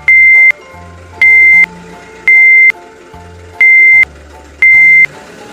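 Five loud electronic beeps, each a single high tone about half a second long, coming roughly once a second over light background music.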